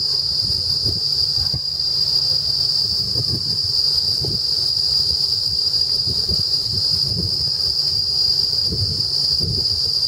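Chremistica umbrosa cicada singing one steady, unbroken high-pitched buzz, with wind rumbling on the microphone underneath.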